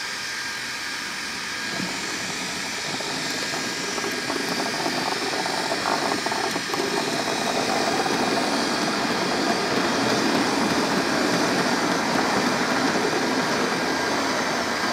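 A model Class 37 diesel locomotive and its wagons running on the layout: a steady mechanical running noise that builds slightly over the first few seconds and then holds.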